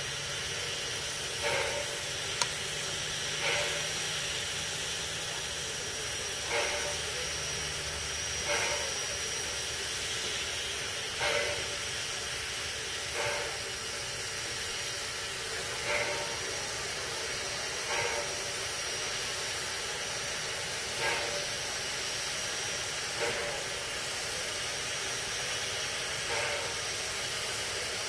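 Robert Dollar Co. No. 3 steam locomotive standing with steam up: a steady hiss of escaping steam, broken by a short puff of steam about every two to three seconds.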